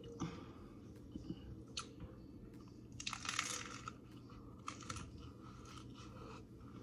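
Crisp corn taco shell crunching as it is bitten into and chewed, with a loud crunch of the bite about three seconds in and smaller crackles of chewing around it.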